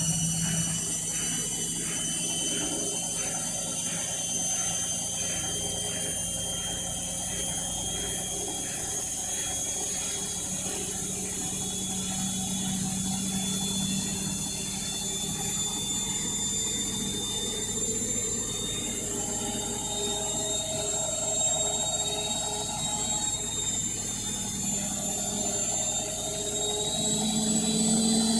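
Indesit washing machine in its final spin with an unbalanced load: the motor and drum whine steadily over a low hum, with a regular pulsing in the first several seconds and the pitch creeping up slightly near the end. Running unbalanced like this is said to hammer the bearings.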